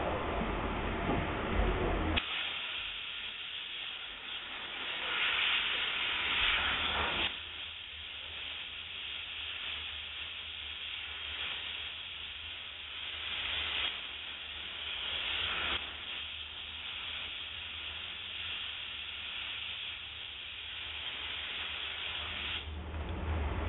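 Optima DMF steam cleaner's nozzle hissing as it sprays steam onto a car's hood, in long continuous spells with two louder stretches. About two seconds in, the hiss takes over from a low rumble.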